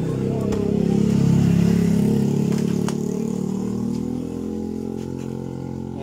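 A motor vehicle passing on the road: its engine grows louder for about a second and a half, then fades as its pitch slides down. A few light clicks are heard along with it.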